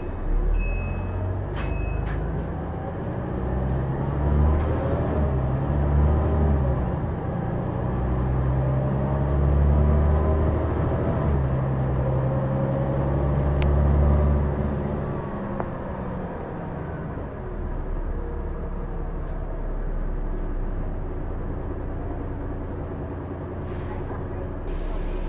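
Volvo Olympian double-decker bus's diesel engine heard from inside the bus, pulling hard with its pitch rising and then dropping several times as the ZF automatic gearbox changes up. From about two-thirds through it settles to a lower, steady idle as the bus stops. Two short high beeps near the start.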